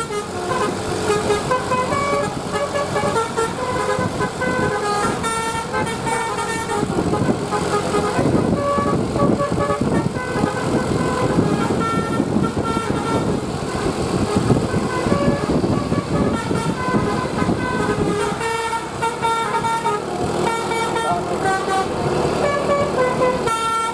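A bus's basuri 'telolet' multi-tone air horn plays a quick tune of stepped horn notes. Under it the bus runs, with a rougher rumble and noise rising in the middle stretch.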